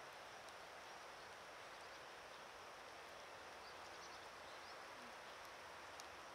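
Near silence: a faint steady hiss of rain, with a few faint high bird chirps.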